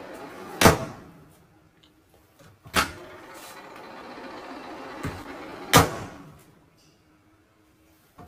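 A microwave oven hums while its door stands open, and the hum stops each time the door is snapped shut. There are three sharp door clicks: the hum dies after the first, starts again after the second, and dies after the third. This microwave runs only while its door is open.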